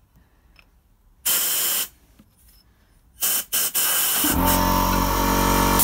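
Compressed-air blow gun blowing through the oil drain hole in a Citroën 2CV stub axle housing: air passing through shows the hole is clear. One short hiss about a second in, a few quick blasts around three seconds, then a long blast with a low hum joining it.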